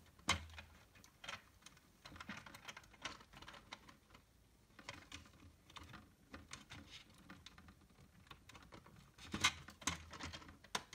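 Faint, scattered small plastic clicks and taps from a plastic OO gauge model coach and its small wire connector being handled and fitted back together by hand, with a sharper click about a quarter second in and a few louder ones near the end.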